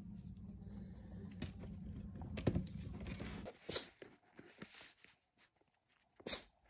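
Cats at play with small objects: light knocks and scrapes of a ball inside a corrugated-cardboard scratcher ring over a low steady hum. Then scattered soft taps and two short, sharp rustles of paper being pawed.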